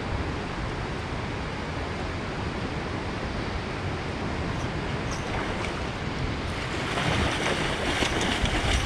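Fast river current and whitewater rushing steadily. About seven seconds in, the sound grows louder as the hooked chinook salmon thrashes and splashes at the surface.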